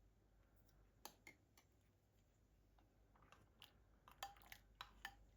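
Faint light clicks and taps over near silence: one about a second in, then a quicker run of them in the last two seconds.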